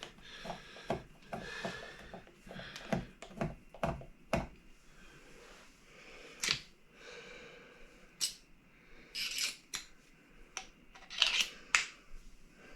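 Scattered sharp clicks and short scrapes of small tools and metal parts being handled while taking the pickups out of an electric guitar, with brief scraping spells about nine seconds and eleven seconds in.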